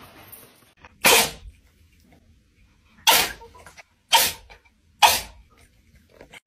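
Domestic cat sneezing four times, short sharp sneezes, the last three about a second apart.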